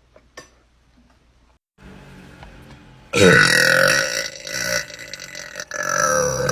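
A long, loud burp from a young woman, starting about three seconds in and held on with a wavering pitch.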